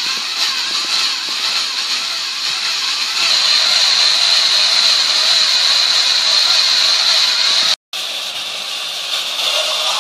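High-pitched whine of small battery-powered toy motors running steadily, cutting out briefly a little under eight seconds in.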